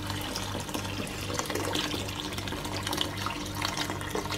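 Liquid poured in a steady stream from a pot into a large stainless steel stockpot of broth, splashing continuously into the liquid.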